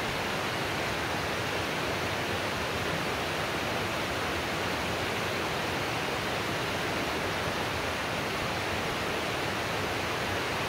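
A small waterfall: water falling and splashing in a steady, even rush of noise.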